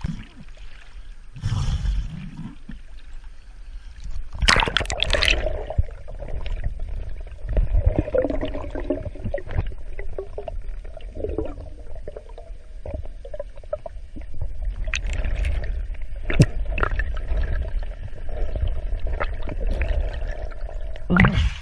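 Muffled underwater sound from a free diver's camera: a steady low water rumble with gurgling and small clicks, and a louder splashy rush about five seconds in.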